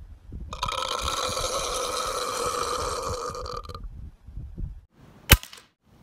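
A long, drawn-out human burp of about three seconds, held steady in pitch, followed near the end by a single sharp rifle shot.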